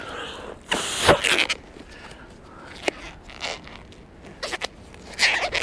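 Rustling, crinkling handling noises as gloves are worked on over wet hands, with a few short scrapes and a sharp click; the loudest rustles come about a second in and near the end.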